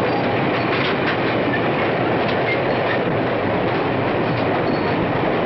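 Freight train rolling along the track: a steady rumble of wheels on rail with irregular clattering clicks and a few brief, high wheel squeals.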